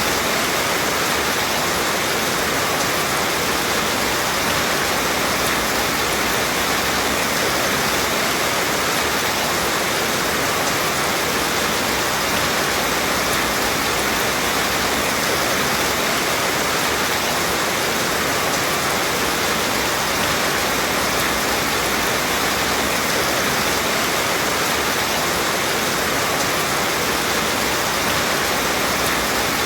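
Steady rain: a dense, even hiss that holds without a break, with no single drops standing out and no thunder.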